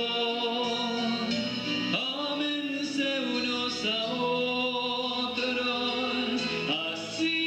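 A male voice singing a slow Spanish-language religious song in long held notes over musical accompaniment.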